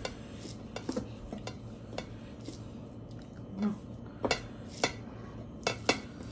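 Hand mixing rice on a ceramic plate: fingers scraping and pressing the rice, with scattered light clicks and taps against the plate, a few sharper ones in the second half.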